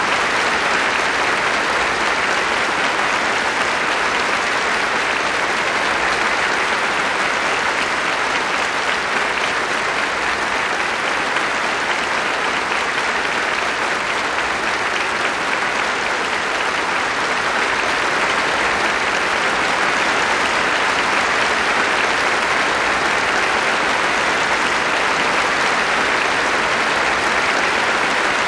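Large concert-hall audience applauding, a steady, dense ovation that keeps up without letting up.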